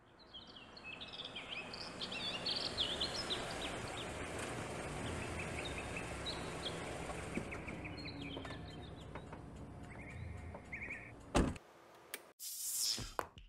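Street ambience: birds chirping over a steady low rumble of traffic. Near the end, a sharp hit, a brief silence, then a short whoosh.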